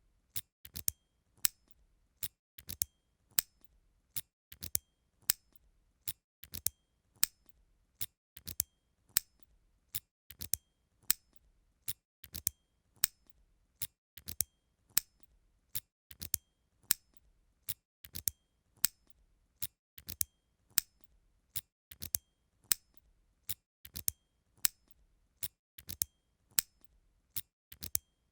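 Door lock closing: a sharp metallic click, often a quick double click, repeated over and over at an even pace of a little more than once a second.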